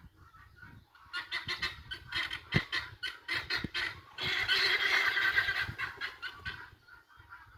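Domestic fowl calling: a fast run of short calls, then one long, loud call about four seconds in lasting about a second and a half, then a few fainter calls.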